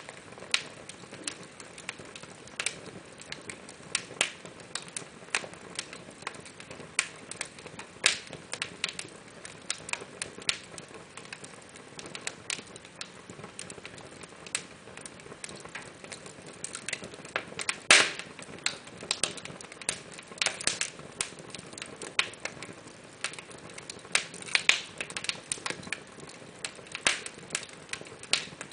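Wood fire in a fireplace crackling, with irregular sharp pops and snaps over a soft steady hiss; one loud pop comes a little past the middle.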